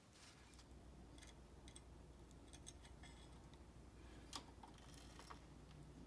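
Faint, scattered small metallic clicks and taps at irregular moments, the clearest a little past four seconds in: an Oliver typewriter's ribbon tin being set in place and a screw started into it with a small screwdriver.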